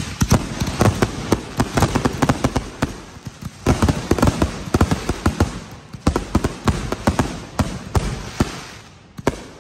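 A barrage of canister firework shells, about a hundred fired together: overlapping launch thumps and aerial bursts in a dense, continuous crackle that thins out and fades near the end.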